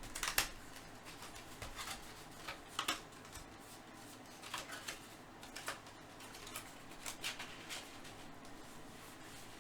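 Faint, scattered crinkles, rustles and light taps of a trading-card hobby box and its wrapping being handled and opened.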